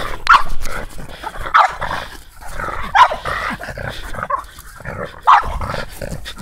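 Small dog barking at a crab, about four sharp barks a second or more apart, with quieter grumbling sounds between them.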